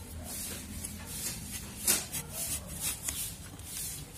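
Raw green mango being pared against an upright boti blade: a series of short, scratchy slicing strokes through the skin, the sharpest about two seconds in.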